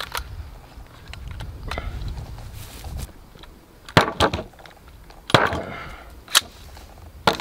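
Sig MCX Spear LT 5.56 rifle's action being worked by hand: a series of sharp metal clacks, the loudest about four and five and a half seconds in, with a brief rattle after one of them. This is a misfired round being cleared after a light primer strike.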